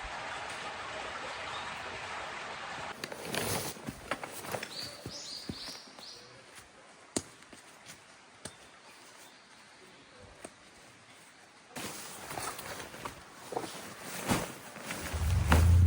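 Footsteps on a forest path, with a bird giving a quick run of rising chirps; at the start a steady rush like flowing water, and near the end a loud low drone comes in.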